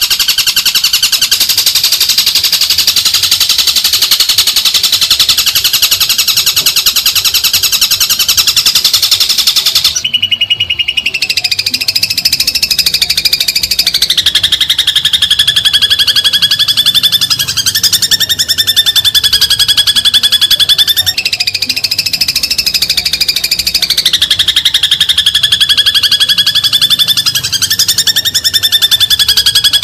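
Masteran recording for training long-tailed shrikes: a loud, very rapid buzzing trill with a steady high-pitched tone. It breaks briefly about a third of the way in, and after that its pitch steps up and down.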